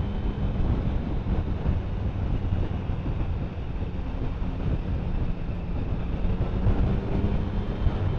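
Motorcycle on the move: steady engine hum under heavy wind and road rush on the rider's microphone.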